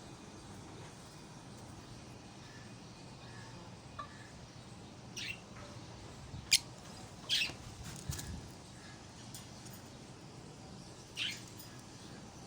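Ringneck parakeets giving about half a dozen short, sharp calls, scattered and irregular, the loudest a very brief one about midway, over a faint steady low hum.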